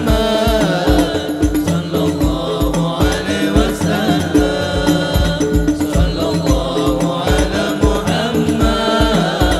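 Hadroh ensemble performing sholawat: several men singing together into microphones over a steady beat of low hadroh bass-drum strokes, roughly two to three a second, with frame-drum hits above, through a sound system.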